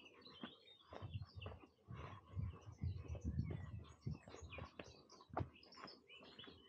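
Several small birds chirping and twittering, with the low, regular thuds of footsteps of someone walking along a path beneath them.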